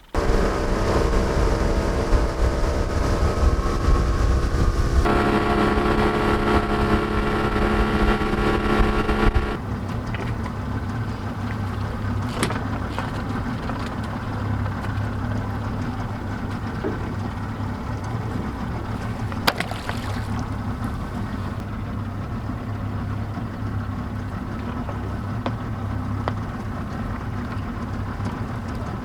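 Boat's outboard motor running under way. It is louder for the first ten seconds, shifts up in pitch about five seconds in, then drops to a lower, steady run.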